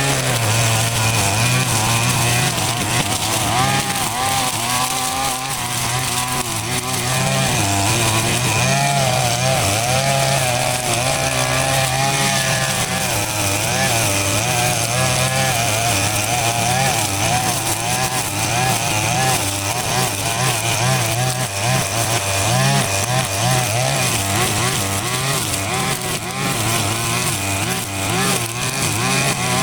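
A small engine running steadily with a constant hum and a wavering, varying note above it.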